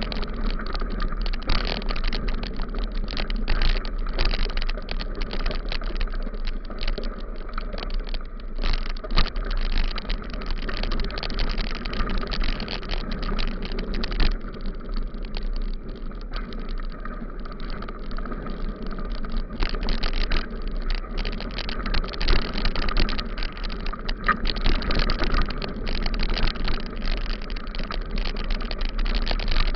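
Bicycle riding over a rough gravel road: a dense, irregular rattling and crunching from the tyres and the shaken camera mount, over a steady low rumble of wind on the microphone.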